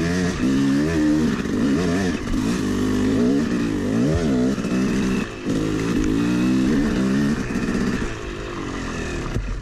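Yamaha YZ250 two-stroke dirt bike engine revving up and down as the throttle is worked on a trail climb, its pitch rising and falling again and again. The engine note falls away near the end.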